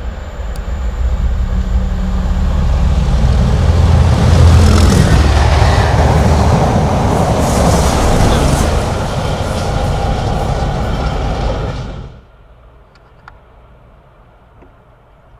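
Pair of English Electric Class 37 diesel locomotives top-and-tailing a Network Rail test train, passing at speed. The lead loco's engine drone builds to its loudest about four seconds in, then gives way to the wheel and rail noise of the coaches and the trailing loco. The sound cuts off abruptly about twelve seconds in, leaving only faint background.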